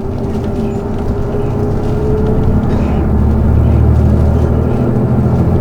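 City bus engine running, heard from inside the cabin, its low drone growing louder about halfway through as the bus pulls away. A steady whine fades out about two seconds in.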